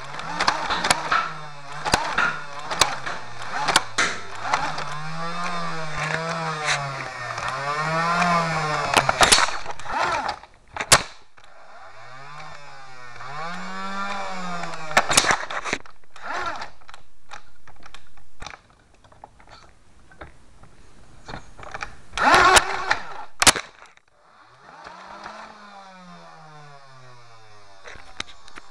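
An engine revving up and down again and again, with many sharp clicks and knocks throughout. It falls away briefly a few times.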